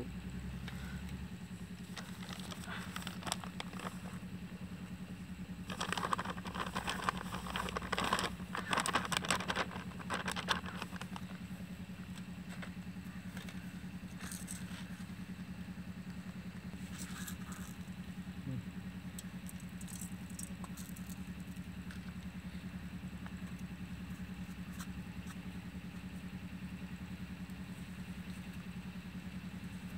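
Plastic packet of gram flour rustling and crinkling as it is opened and poured into a steel bowl, a cluster of scraping noise about six to eleven seconds in, over a steady low hum.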